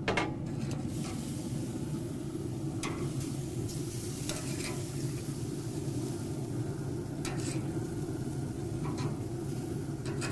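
Chicken breasts sizzling on the hot grates of a Traeger Timberline 850 pellet grill as they are lifted off with metal tongs, with a few short clicks of the tongs against the grate. A steady low hum runs underneath.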